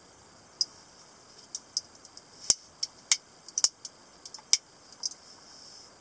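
Sharp metallic clicks and taps of a leverlock stiletto switchblade handled in the fingers. There are about a dozen irregular clicks, and the loudest comes about halfway through.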